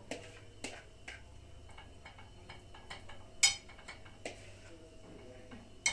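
Scattered light clicks and knocks of kitchen dishes and utensils, with one sharp, ringing clink about three and a half seconds in and another near the end.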